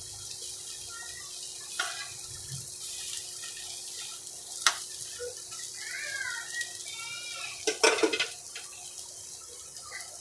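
Egg and green vegetables sizzling softly in an oiled frying pan, the heat just switched off, with a spatula scraping against the pan a few times, loudest near the end.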